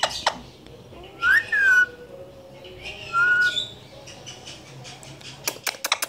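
Indian ringneck parakeet whistling twice: a short call that rises and falls, then a steadier one. Near the end comes a quick run of sharp clicks.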